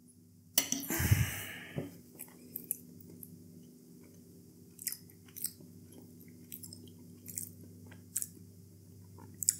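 A person chewing a soft meat-free chicken piece close to a clip-on microphone: a run of small wet mouth clicks, with a brief louder noise about a second in.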